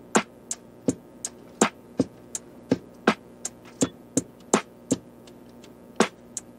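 Background music with a sparse electronic beat: sharp, clicky percussion hits about three a second, alternating louder and softer, over faint sustained tones.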